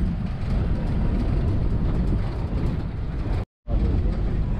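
Steady low rumble of an open-top safari canter driving along a dirt track, engine and road noise. The sound drops out briefly about three and a half seconds in.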